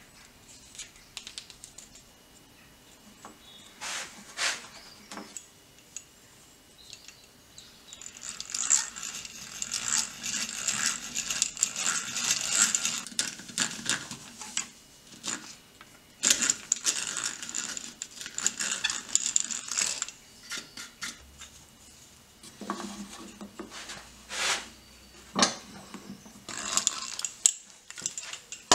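Hand-cranked drill boring into pallet wood, with its gears clicking and the bit cutting in several long spells, and a few sharp knocks in between.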